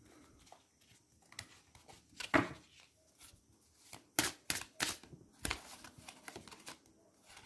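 Tarot cards being handled and laid down: irregular light snaps, taps and rustles, with the sharpest a little over two seconds in and a cluster around four to five and a half seconds in.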